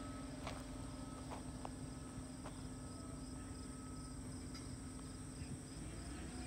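Insects chirping in a quick repeating pulse over a steady high buzz, with a steady low machine hum underneath. Near the end the hum drops away and a rising tone begins.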